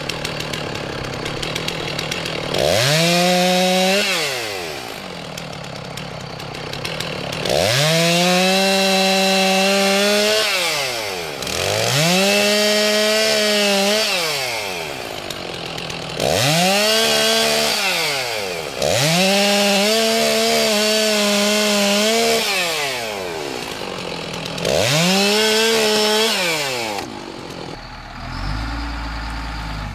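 Two-stroke Stihl chainsaw cutting through a fallen, snow-covered log. It is revved up six times, each time rising to full speed, holding there, and dropping back to idle between cuts. Near the end a truck engine's low rumble takes over.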